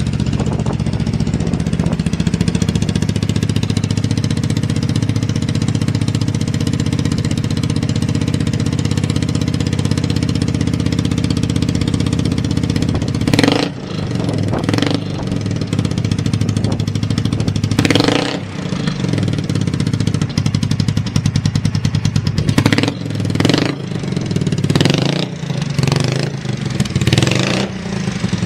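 Kawasaki Z200's single-cylinder four-stroke engine idling steadily with no abnormal noises. Its throttle is blipped once about halfway, again a few seconds later, then in a quick run of revs near the end.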